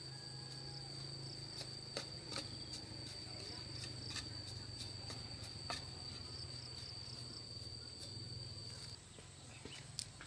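An insect's steady, high-pitched buzz, which stops about nine seconds in, with a few scattered sharp knocks.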